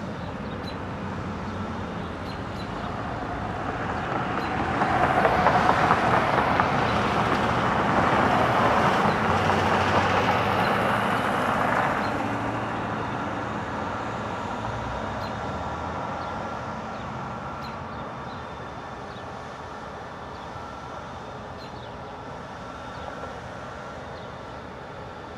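Road traffic passing: tyre and engine noise grows about four seconds in, stays loudest for several seconds, then slowly fades.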